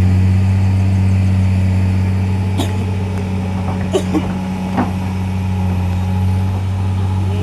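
An engine running steadily at a constant low pitch, with a few light clicks or knocks over it.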